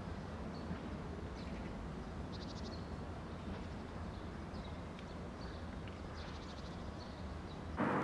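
Garden ambience: a steady low background rumble with faint bird chirps and short rapid trills now and then. Just before the end a sudden louder rush of noise cuts in.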